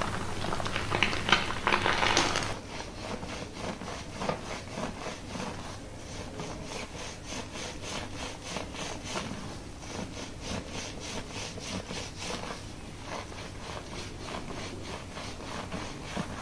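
Fingers scrubbing a shampoo-lathered scalp and hair in steady, rhythmic rubbing strokes, after a louder hissing rush over the first couple of seconds.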